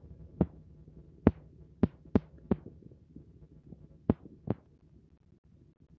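Seven soft, irregular knocks over a faint low hum: handling noise from a phone held right against a cat and its bedding, the knocks bunched in the first half.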